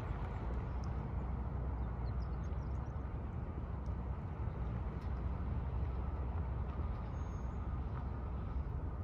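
Pickup truck driving away, its road noise fading over the first second or so, over a steady low rumble of wind on the microphone.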